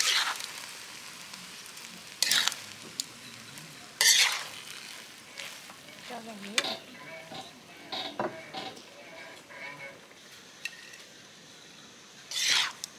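Spatula scraping and stirring stir-fried snails and leaves in a hot pan, in a few loud scrapes near the start, at about two and four seconds, and again near the end, over a sizzle that dies down just after the heat is turned off.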